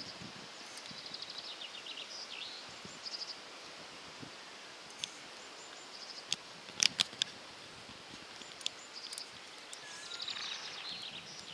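Songbirds singing high, rapid trills and chirps over a steady outdoor background hiss, busiest near the start and again near the end. A few sharp clicks sound close together about seven seconds in.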